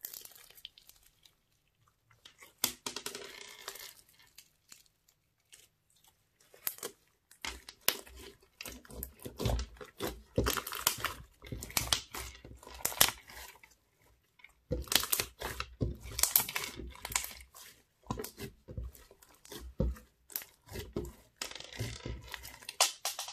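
Crunchy slime full of small foam beads being stretched, folded and pressed by hand, crackling and popping irregularly in several bursts with short pauses between.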